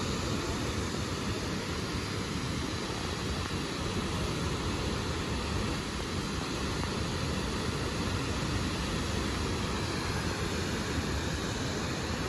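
Waterfall rushing: a steady, pretty loud noise of falling water.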